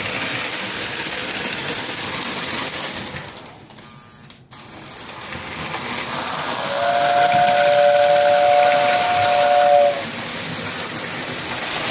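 Lionel 675 toy steam locomotive and cars running on the track with a steady whirring rattle that drops out briefly about four seconds in, then the tender's whistle blowing a two-note chord for about three seconds.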